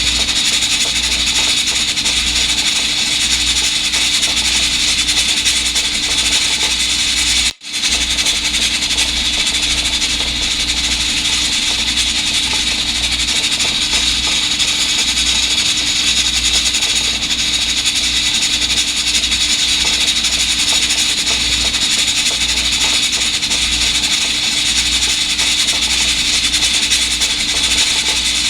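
Electric pressure rice cooker running its cleaning cycle, giving off a steady, loud steam hiss over a low hum and rumble. The sound cuts out for a split second about seven and a half seconds in.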